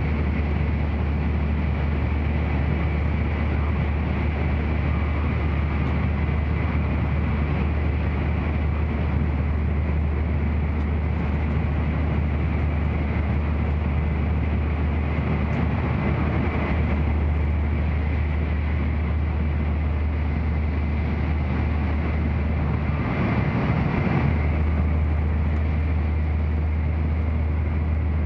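Running noise of an N700-series Shinkansen heard inside the passenger cabin: a steady low rumble under a broad rushing sound. The noise swells briefly twice in the second half.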